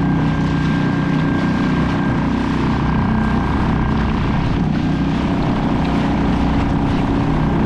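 Suzuki 2.5 hp four-stroke outboard motor running at a steady speed, pushing a fishing kayak along, with a steady low hum and the rush of water and wind.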